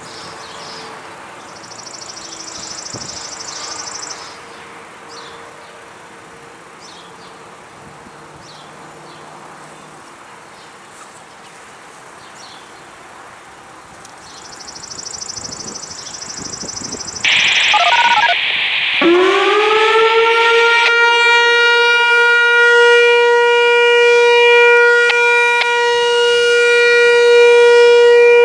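Whelen WPS-4004 electronic warning siren starting up on its custom-pitch analog tone. After a stretch of faint outdoor ambience comes a short burst of hiss about seventeen seconds in. Then a tone sweeps quickly up and settles into a steady siren tone that grows louder as the rotating head turns.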